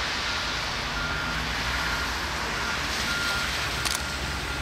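A short, high electronic warning beep repeats every half second to a second over a steady hiss and low rumble of traffic on a slushy street, with a sharp click just before the end.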